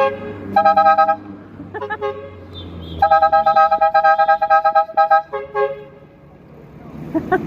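Car horns honking in city traffic: a few short two-tone blasts, then one long blast of about two seconds, then another short one, over the low hum of vehicle engines.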